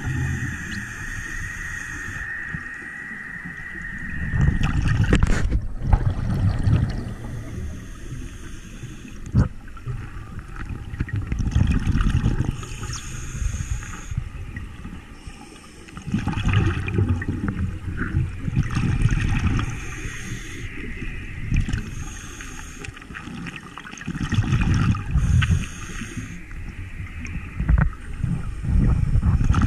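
Scuba diver breathing underwater through a regulator: surges of exhaled bubbles gurgling every few seconds, with hissing inhales between them.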